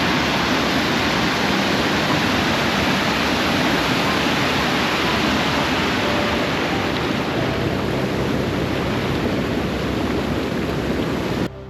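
Close-up roar of D'Alton Falls, a large waterfall carrying lots of water, a loud steady rushing that cuts off suddenly near the end.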